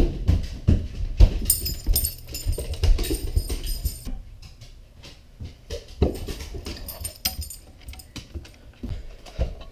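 A dog moving about, most likely climbing stairs: irregular thuds and knocks of its paws, with its collar tags jingling twice, first about a second and a half in and again near the middle.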